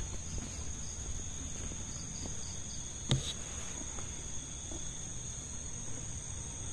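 Night insects trilling steadily at a high pitch over a low rumble, with a single sharp knock about three seconds in.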